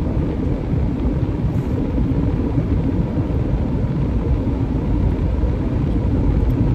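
Steady low road and engine rumble inside a car cabin cruising at highway speed.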